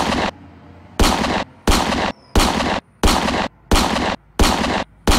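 A rapid series of gunshot sound effects from a toy pistol: about eight shots, roughly one every 0.7 s. Each shot starts sharply and dies away within about half a second.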